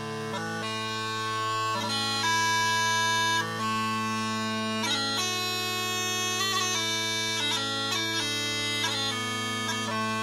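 3D-printed Lindsay System Scottish smallpipes playing a slow strathspey: the chanter melody moves note to note over steady drones, with quick grace notes flicked between the melody notes.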